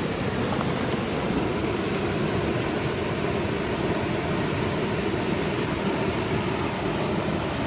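Mountain stream water rushing steadily over rocks, a constant even noise of flowing water close by.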